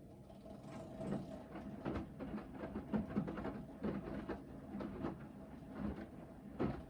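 Hoover VHD 9163 ZI washing machine in its main wash: the drum starts turning again after a pause, with a steady motor hum as the washload tumbles and soft knocks come roughly once a second.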